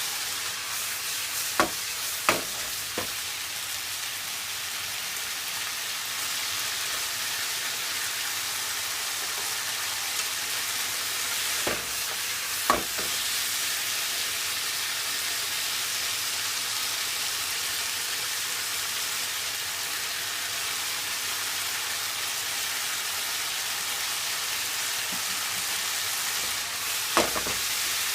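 Chicken breast and broccoli sizzling steadily in a frying pan as they are stir-fried, with a few sharp knocks of a utensil against the pan: three close together near the start, two about halfway, and one near the end.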